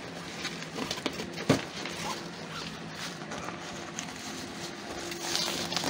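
Handling noise of a camera being moved against cloth: rustling and light clicks, with one sharper knock about a second and a half in, over a faint steady hum.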